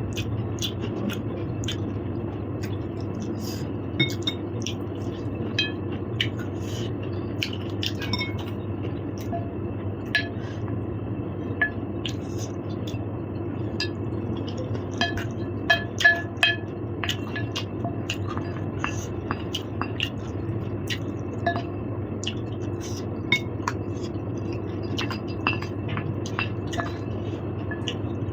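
Metal cutlery clinking against a bowl and plate while eating, in scattered short clinks with a quick cluster about sixteen seconds in. A steady low hum runs underneath.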